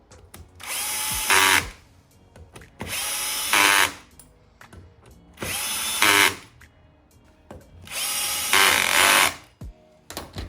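Cordless power driver running four bursts of about a second each while driving in the bolts of a new rear sprocket. Each burst gets louder near its end as the bolt tightens, then winds down.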